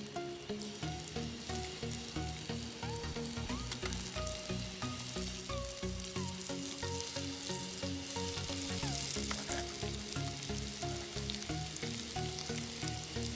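Sliced garlic, shallots and ginger sizzling steadily in hot oil in a small camping pan on a portable gas stove, with background music with a steady beat laid over it.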